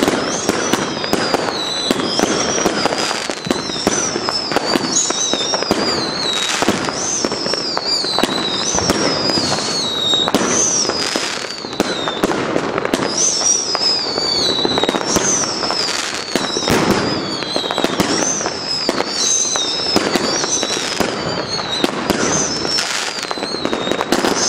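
New Year's fireworks going off nonstop: a dense barrage of bangs and crackling from shells and firecrackers, with high whistles that waver and fall in pitch every second or two.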